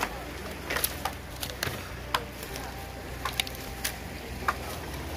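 A series of irregular sharp knocks and clicks, about a dozen, over a steady low hum.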